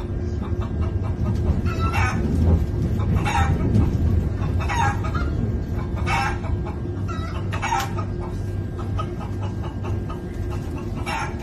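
Recorded chicken clucking played through a Bluetooth speaker, in short calls about every one and a half seconds, with a longer pause near the end, over the steady low rumble of a moving train.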